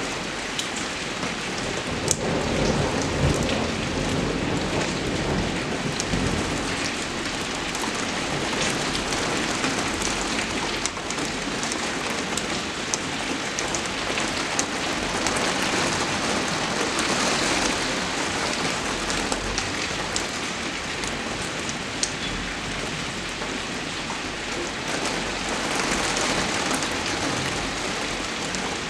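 Steady rain falling, a dense even hiss with many sharp individual drop ticks scattered through it.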